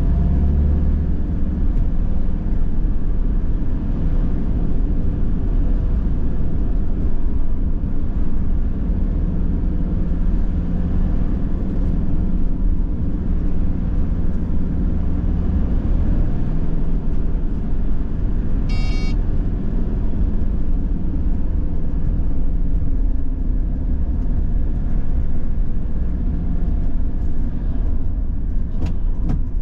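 Van cabin noise while driving: a steady low rumble of engine and tyres on the road. A brief high-pitched tone sounds about two-thirds of the way through.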